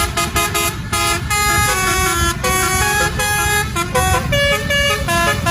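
Indonesian bus 'telolet' multi-tone horn playing a quick tune of short stepped notes over a steady low rumble.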